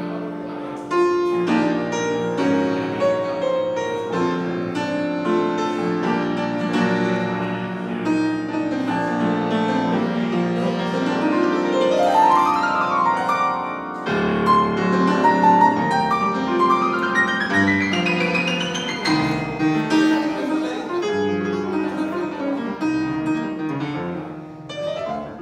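Grand piano played solo in a warm-up, dense chords and lines, with two fast runs rising up the keyboard, one about halfway through and another a few seconds later.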